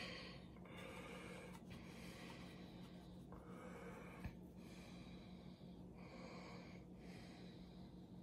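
Near silence: faint, even breathing close by, with soft swells about once a second and a small tick about four seconds in.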